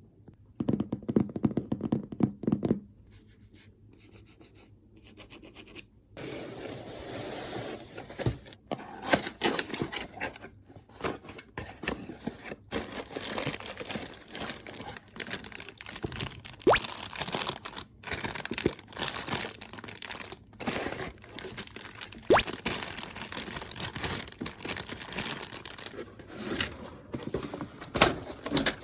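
Close-miked hands handling toy packaging and plastic parts: scraping, crinkling and rustling with scattered sharp clicks. A short burst comes in the first few seconds, then a pause, then steady handling from about six seconds in.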